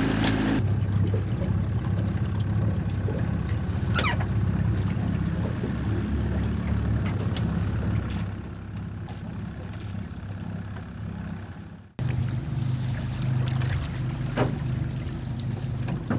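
Motorboat engine running steadily at cruising speed, a low even hum with the hiss of the hull on the water. It cuts out for a moment about twelve seconds in and resumes.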